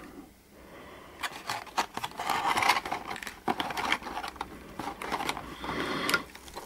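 Hands handling and opening a padded, foam-lined collector's case for a die-cast model car: irregular scraping and rustling with scattered small clicks.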